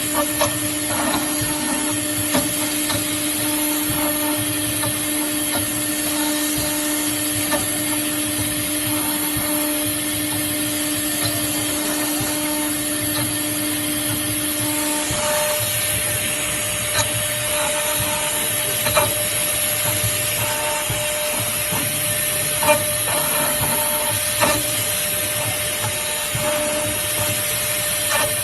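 ATC CNC router running: a steady machine drone with whining tones and short on-off tones from the moving axes, with scattered small clicks. One lower whine drops out about halfway through.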